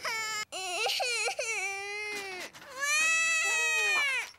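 A toddler girl crying: a short cry, then a wavering, broken wail, then a long drawn-out wail near the end. She is upset at being left behind.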